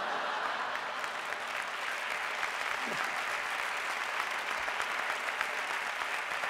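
Studio audience applauding steadily: dense, even clapping from a large seated crowd.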